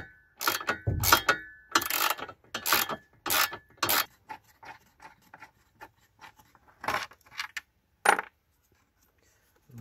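Hand ratchet with a 10 mm socket clicking as a bolt is worked loose: a run of quick strokes about every half second with a brief metallic ring at first, then lighter clicks and two single strokes near the end.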